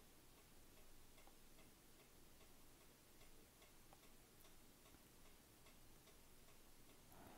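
Near silence: room tone with a faint, even ticking, about two ticks a second.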